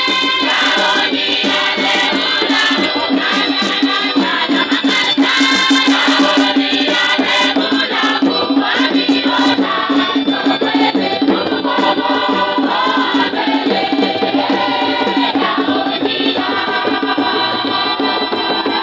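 A large crowd of women singing a hymn together in the open air, with hand-clapping and shaken percussion keeping a steady beat.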